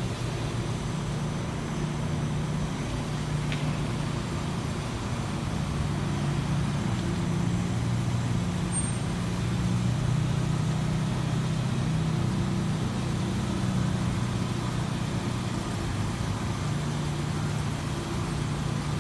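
Motor vehicle engine running steadily with road traffic noise, its low hum shifting slightly in pitch.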